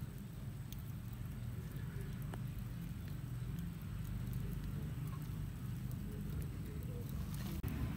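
Ears of white corn grilling on a wire rack over a fire: faint scattered crackles and ticks, with a few light knocks as the cobs are turned by hand, over a steady low rumble.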